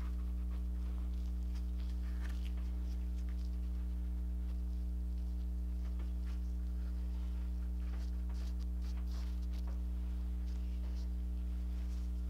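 A steady low electrical hum throughout, with faint light rustling and crinkling as gloved hands handle and smooth a strip of fiberglass cloth, mostly a couple of seconds in and again in the second half.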